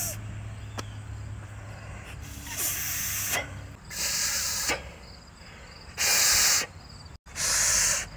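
Breath blown hard through a hollow squash stem in four short bursts, each coming out as an airy hiss with no horn note: the squash-stem horn fails to sound.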